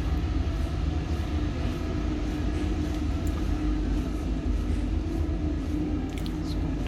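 Steady low rumble and hum of a cruise ship's machinery and ventilation, heard inside a passenger deck corridor, with a few faint ticks.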